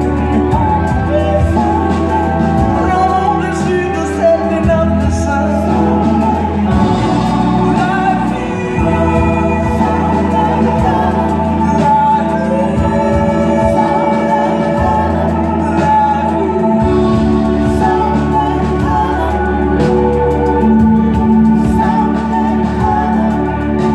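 Live soul-rock band playing, with a female lead voice singing over keyboards, bass guitar and drums, heard from the audience.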